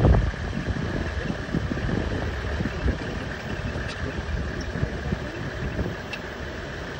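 Safari vehicle's engine idling with a steady low rumble.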